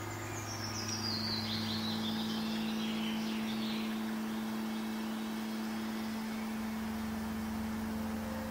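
Fantasy ambience music: low sustained drone notes that shift and add new notes a few times, under a bird trill that falls steadily in pitch over the first three or four seconds.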